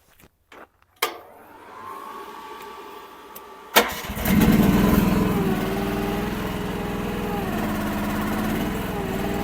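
Kymron mini excavator's 14 horsepower Briggs & Stratton engine being started: a click and a low hum about a second in, a sharp click just before four seconds, then the engine catches and runs steadily, its pitch shifting slightly near the end.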